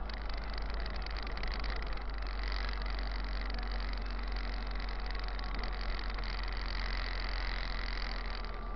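City bus driving, heard from inside the cab: a steady low engine drone with road and cabin noise.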